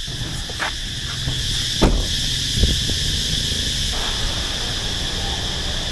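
Steady background noise with a high hiss and low rumble, broken by a few dull thumps, the loudest about two seconds in.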